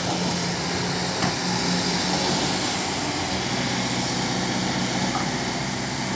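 Kobelco SK200 hydraulic excavator's diesel engine running steadily as the machine swings its upper body and arm round.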